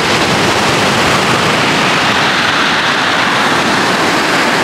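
Surf breaking against a rock jetty and pebble shore: a steady, loud, even roar of rushing water.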